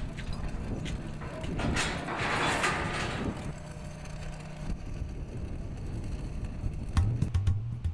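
A steady low machine hum with a swell of rushing noise about two seconds in, which dies away after a second or so. Near the end, drum-led music with sharp beats comes in.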